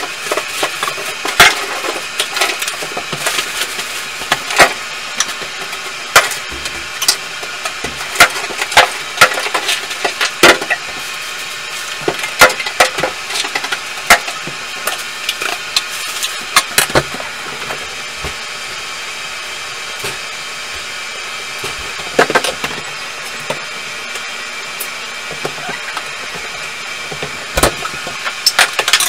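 Irregular sharp knocks, clanks and scrapes of hand tools, a pry bar and a wooden-handled striking tool, working at a bathtub to tear it out, over a steady faint hum. The strikes come thick at first, thin out about two-thirds of the way through, and pick up again near the end.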